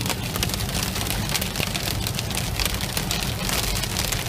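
Hail and heavy rain pelting a vehicle: a dense, steady clatter of many small impacts over a low rumble.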